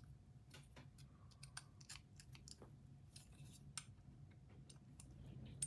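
Faint, scattered small clicks and ticks of metal parts being handled while the pivot screw of a Ketuo Ventr button-lock folding knife is tightened with a driver during reassembly.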